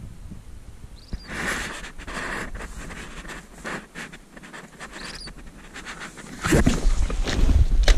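Fabric and mesh of a layout blind rustling and scraping as its doors are pushed open. It gets much louder near the end, with low rumbling handling noise and clicks. A couple of faint short high chirps come through earlier.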